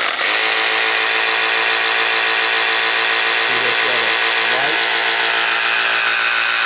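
Snap-on CTRS761 14.4 V cordless reciprocating saw running steadily, a loud, even motor and drive hum that holds at one speed.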